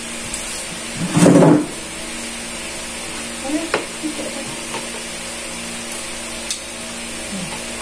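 Metal spoon clicking against a bowl a few times while eating, over a steady background hum and hiss, with one brief louder sound about a second in.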